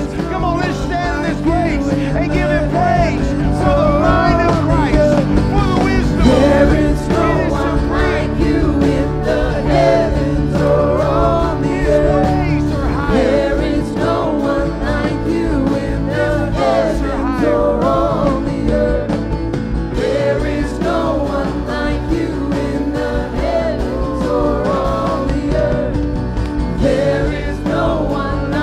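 Live church worship music: several singers singing into microphones over keyboard, with sustained low notes underneath.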